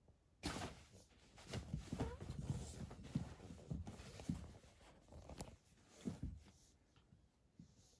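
A kitten's paws trampling a pop-up fabric cat tunnel: irregular rustling and crumpling of the thin fabric with soft thumps. It starts about half a second in and dies away after about six seconds.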